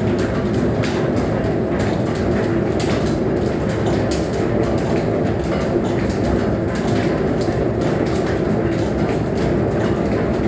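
Flat-belt drive of a Wanderer horizontal milling machine running off an overhead line shaft: a steady mechanical din with rapid, irregular ticking and clatter.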